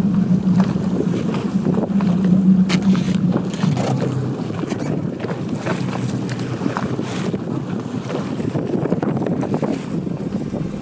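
Boat engine running with a steady hum, loudest in the first three seconds, while wind buffets the microphone.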